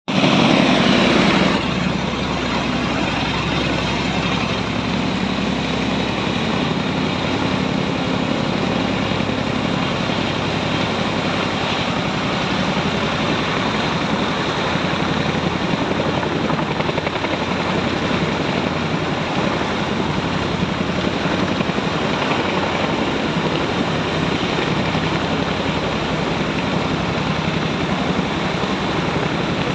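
Helicopter rotor and turbine engine running, a steady dense whir with a low hum, louder for the first second and a half.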